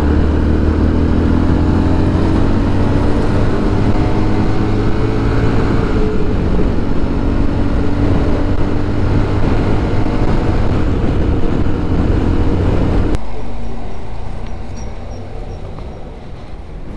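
Motorcycle engine running while riding, with a slowly drifting engine note over road noise. About thirteen seconds in it cuts off suddenly to a much quieter, fading sound.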